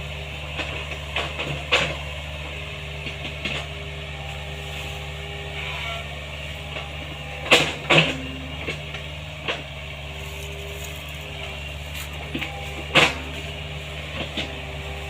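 Excavator's diesel engine running steadily, with a hydraulic whine that comes and goes and a few sharp metallic knocks, the loudest a pair about halfway through and one near the end.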